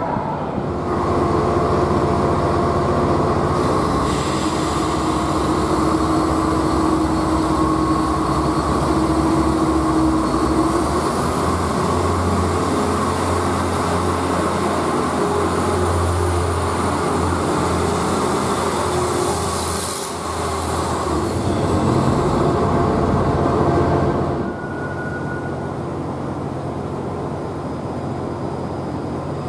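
Renfe Class 594 two-car diesel multiple unit departing and running past, its diesel engine working loudly under power. A high whine rises about ten seconds in and falls away about twenty seconds in. At about 24 seconds the sound drops to a quieter steady hum of a train standing at the platform.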